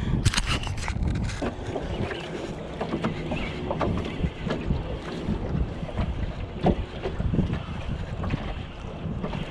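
Wind buffeting the microphone and choppy water lapping against a jon boat's hull, with scattered small clicks and knocks. A cluster of louder clicks comes about half a second in.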